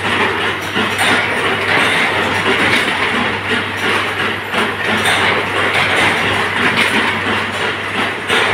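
Running induction forging machine and surrounding workshop machinery: a steady low electrical hum under loud, continual rattling and clattering.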